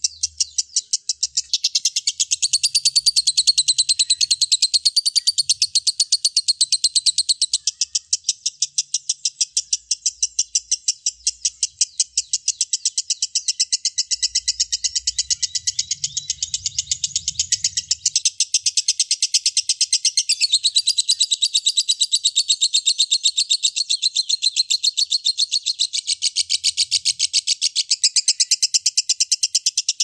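Lovebird chattering in a long, unbroken run of rapid, high-pitched chirps, several a second.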